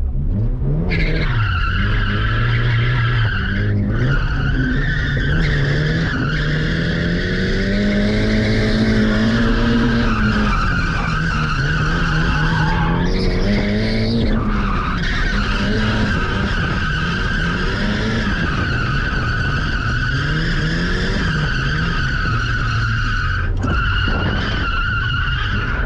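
Nissan 200SX S15's turbocharged SR20DET four-cylinder revving up and down through a drift, with the tyres squealing almost the whole time. The squeal breaks off briefly a couple of times, around the middle and near the end.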